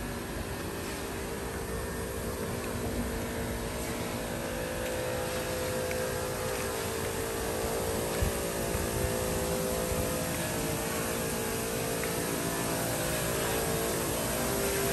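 A motor engine drones steadily and slowly grows louder, with a single sharp knock a little past halfway.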